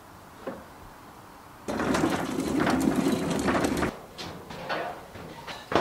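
Heavy wooden furniture being hauled up a metal staircase. A dense, grinding scrape starts suddenly about two seconds in and lasts about two seconds, followed by a few lighter knocks.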